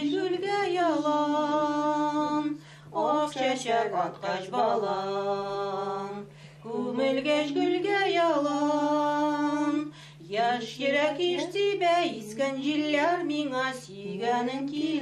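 A woman singing a slow folk song with little or no accompaniment. She holds long notes with a wavering pitch, in four phrases with short breaths between, over a steady low drone.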